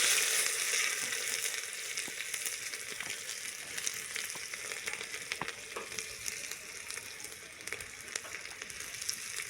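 Ground green chilli and garlic paste sizzling in hot mustard oil in a clay pot. The sizzle is loudest at the start and settles into a steady crackling hiss with scattered pops.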